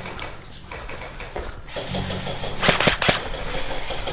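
Airsoft guns firing: a quick cluster of sharp shots, about half a second long, roughly two and a half seconds in.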